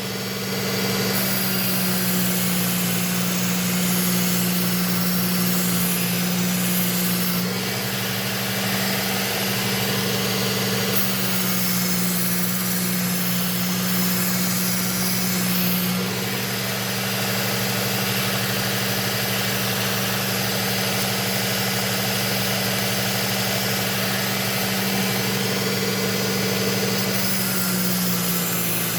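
Electric belt knife sharpener running with a steady motor hum while a kitchen knife blade is drawn across the abrasive belt in several long passes, the grinding hiss shifting as each pass changes.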